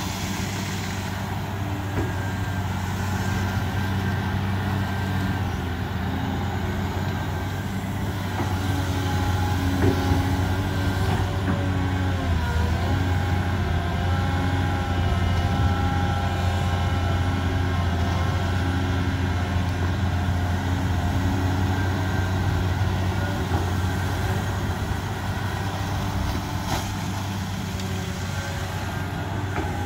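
Caterpillar tracked excavator's diesel engine running steadily under load while the bucket digs mud from a pond. Over it runs a hydraulic whine whose pitch shifts and wavers about halfway through.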